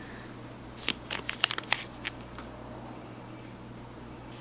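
Plastic graded-coin slabs being handled: a quick cluster of light clicks and rustles about a second in, as one slab is set down and the next picked up, then only a faint steady hum.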